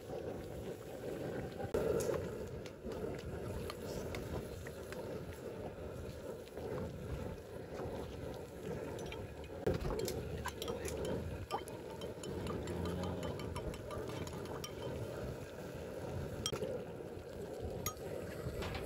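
Steady roar of an outdoor gas wok burner under a wok of simmering seafood and vegetables, with scattered light metal clinks of a spatula and tongs against the wok.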